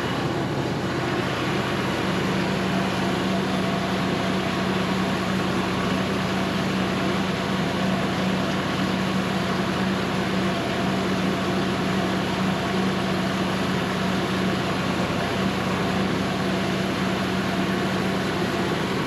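Cook's AC-36 sawmill's diesel engine running steadily, with a steady hum that comes in about a second and a half in and holds.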